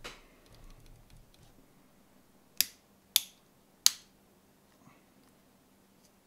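Small side cutters snipping through the thin steel jacket of a 9-volt alkaline battery: three sharp snaps a little over half a second apart, with faint ticks of metal between.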